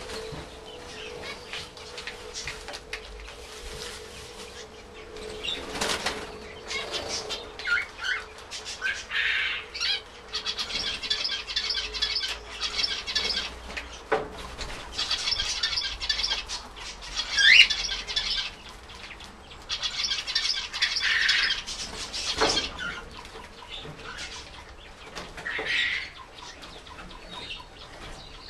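Zebra finches calling and singing: three bouts of a few seconds each of rapid repeated high notes, with single short calls between them.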